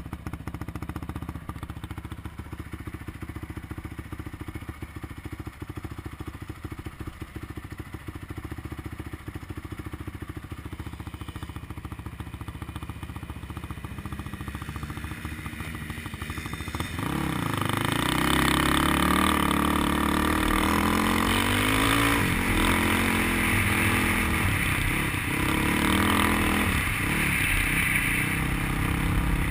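Off-road vehicle engine heard from on board while riding over sand dunes. It runs steadily at low revs, then a little past halfway it opens up, louder and revving up and down repeatedly as the vehicle accelerates hard across the sand.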